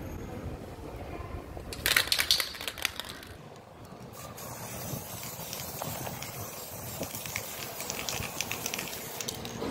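Aerosol spray paint can spraying in a steady high hiss from about four seconds in, after a brief loud clattering burst about two seconds in.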